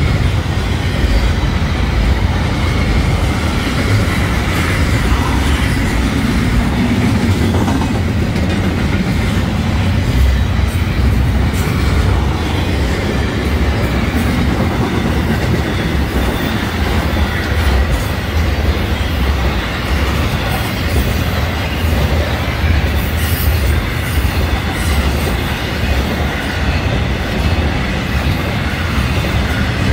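Florida East Coast Railway intermodal freight train passing close by: the steady, loud rumble and clatter of container stack cars and trailer flatcars rolling over the rails.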